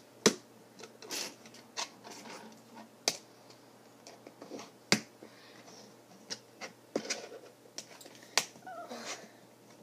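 Small plastic Lego bricks clicking as they are pressed together and handled among loose pieces on a table: scattered sharp clicks at irregular intervals, roughly one a second.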